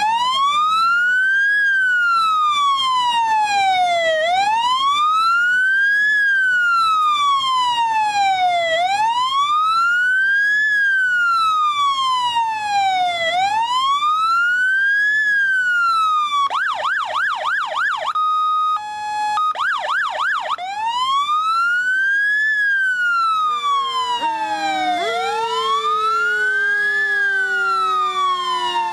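Fire engine's electronic siren sounding a slow wail, rising and falling about every four and a half seconds. About two-thirds through it switches briefly to a rapid yelp and short steady tones, then goes back to the wail. Near the end a second, lower siren tone joins and slowly falls in pitch.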